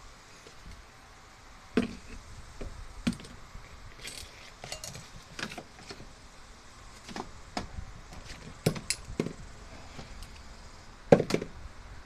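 A steel garage-door extension spring and its wire end hook being handled on a wooden bench: irregular metallic clicks and clinks, with a louder cluster of knocks shortly before the end.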